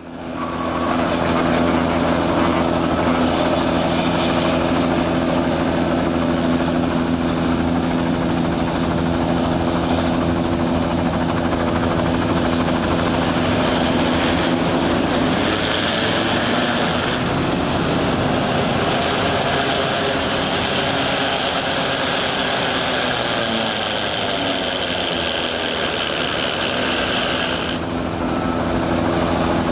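Aircraft engines at an airfield: a steady low engine drone, joined about halfway in by a jet whine from an Airbus A319's IAE V2500 engines on approach to land.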